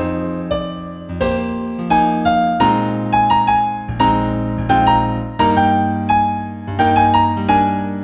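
New-age piano music: a slow melody of struck notes, a new one about every half second, each fading away, over held low chords.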